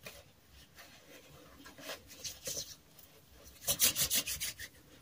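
Hands rubbing together to work in lotion: soft scattered rubbing strokes, then a louder, quick run of strokes near the end.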